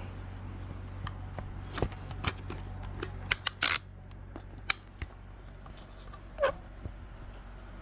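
Sharp clicks and knocks of a phone being handled and fitted into a stand, with a quick cluster of clicks about three and a half seconds in and a brief squeak about six and a half seconds in, over a steady low hum.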